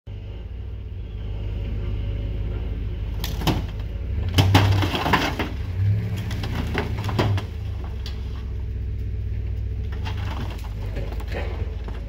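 A Chevy Silverado 2500 pickup's engine running steadily while it drags an old metal refrigerator out of a sinkhole. From about three to seven seconds in, the fridge scrapes and bangs against rocks and brush in a run of cracks, clanks and crunches.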